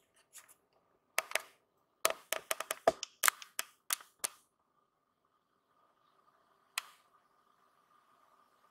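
A quick run of sharp clicks and taps, about a dozen, most of them bunched in the first half, with one more click about two-thirds of the way in. A faint steady hum lies underneath.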